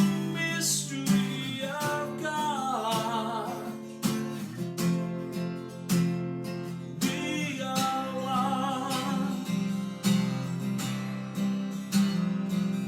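Music: a strummed acoustic guitar keeps a steady rhythm, and a wavering melody line comes in twice, about two seconds and about seven seconds in.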